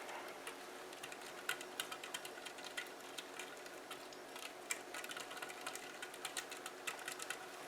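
Faint, rapid light clicking and scraping of a utensil stirring moistened stuffing mix in a bowl.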